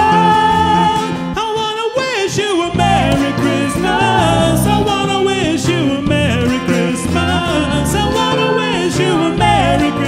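Live band playing and singing a Christmas song: a male lead voice singing over electric bass guitar and the rest of the band.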